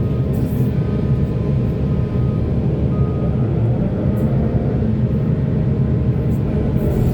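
Heavy diesel mining machinery running steadily, a deep continuous engine rumble.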